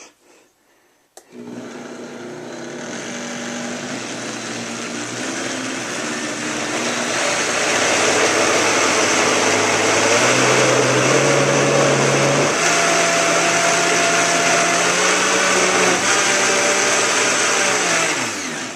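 Vitamix 5200 blender motor starting about a second in. It climbs in speed and loudness over the next several seconds, runs at high speed, then is switched off near the end and winds down with a falling pitch.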